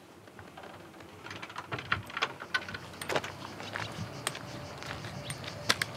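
Footsteps of a hiker carrying a backpack, walking: irregular crunching steps and taps on a gravel path.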